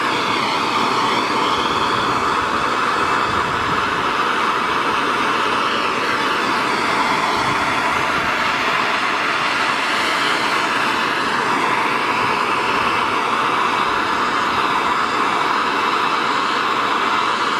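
Handheld MAP gas torch burning steadily, a constant rushing hiss of the flame as it heats bare aluminum up to brazing temperature.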